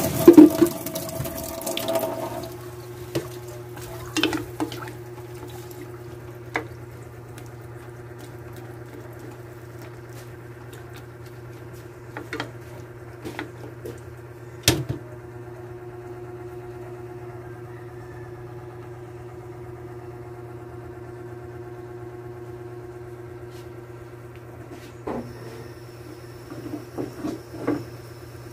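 Water splashing as it is poured into a pot of vegetables in the first couple of seconds, then a steady low hum with scattered clicks and knocks of a plastic spatula against the pot as the vegetables are stirred.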